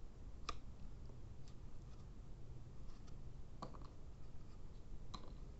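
A few faint, sharp clicks spaced a second or more apart as small insulating pads are handled against a switch-mode power supply's circuit board.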